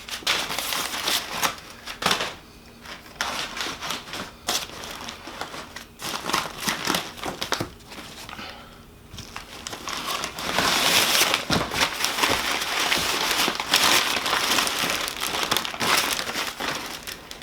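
Packaging crinkling and rustling as supercharger kit parts are unwrapped and handled, with scattered small clicks and knocks; it gets louder and busier about ten seconds in.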